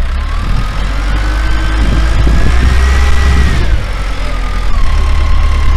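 Telehandler engine running under load while its boom holds up a heavy rolled AquaDam, with a whine that climbs in pitch for about three seconds, then drops back and holds steady.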